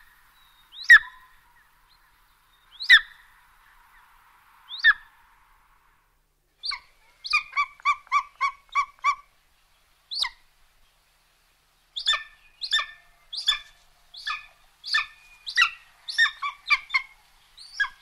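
Golden eagle calling. First come four single high calls, a second or two apart. Then come quick runs of repeated calls at about four a second, with one lone call between the runs.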